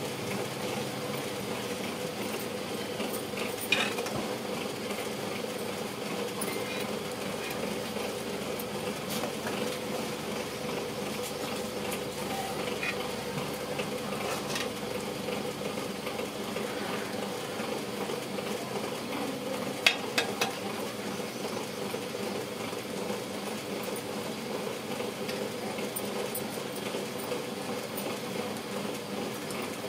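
Vadas deep-frying in hot oil: a steady sizzle over a constant hum. A sharp metal utensil knock comes about 4 seconds in, and a quick run of three knocks about 20 seconds in.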